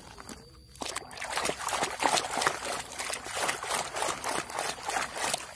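A hand swishing and scrubbing a plastic toy in a bucket of muddy, foamy water. Dense, irregular splashing and sloshing starts about a second in and keeps up.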